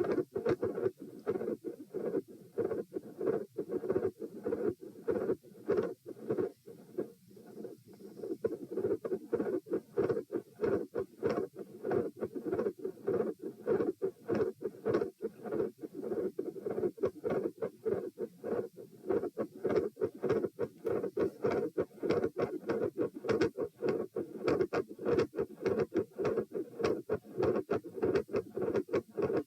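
Heartbeat heard through a stethoscope at the pulmonic area: a steady, fast run of loud lub-dub thumps, with a murmur around the second heart sound.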